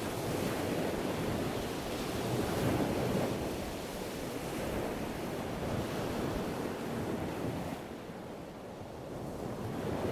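Wind buffeting the microphone outdoors: a steady rushing noise that rises and falls in gusts and eases for a moment about eight seconds in.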